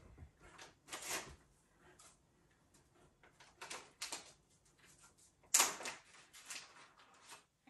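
Small snack packet handled in the hands, rustling in short, irregular bursts, the loudest about five and a half seconds in.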